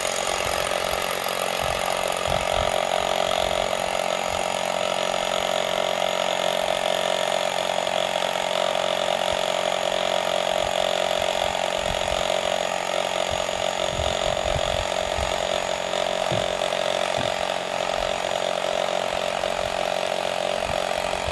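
Rock drill boring into rock, running steadily under load with a constant whine.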